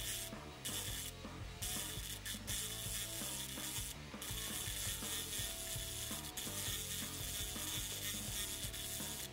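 Power carver with a reciprocating hammer head and a small carbide bit, hammering rapid little indentations into silver maple to texture it. It is a continuous rapid tapping, briefly eased off the wood a few times in the first four seconds.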